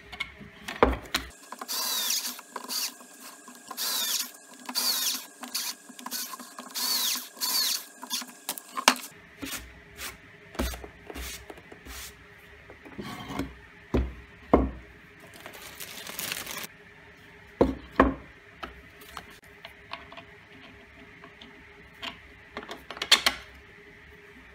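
Hand work on a wooden disc: a run of short rubbing or scraping strokes on its edge, then scattered clicks and knocks from screws being handled and a plastic bag of screws rustling.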